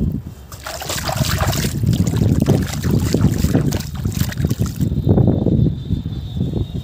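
Soft cement crumbled by hand into a bucket of water, then squeezed and stirred underwater. There is a hissing splash about a second in, and wet sloshing and squelching of the cement slurry throughout.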